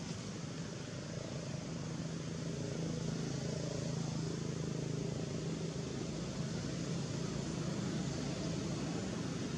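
A motor running: a steady low engine hum over background noise, growing a little louder about two seconds in and holding.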